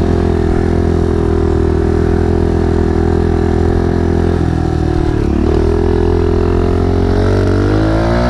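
Kawasaki KLX 110 pit bike's small single-cylinder four-stroke engine running under steady throttle. About halfway through the note dips and wavers for about a second, then climbs in pitch near the end as the bike accelerates.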